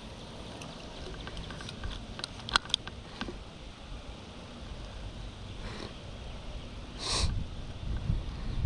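Wind rumbling on the microphone, with a few sharp clicks about two to three seconds in and a short hiss about seven seconds in.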